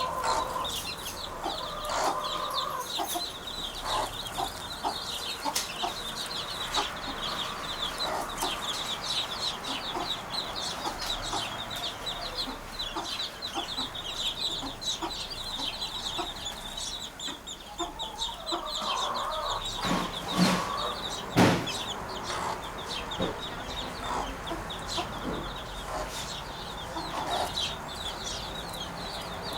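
Birds chattering continuously in a rapid, chicken-like clucking. Two sharp knocks come about two-thirds of the way through.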